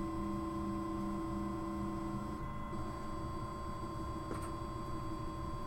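3D printer running, its stepper motors whining in several steady tones that shift briefly about halfway through, with a faint tick later on.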